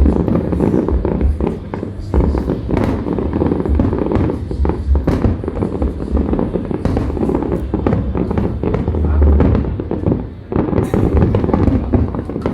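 Aerial fireworks show: a dense, continuous barrage of shell bursts, with many sharp bangs and crackles over deep booms.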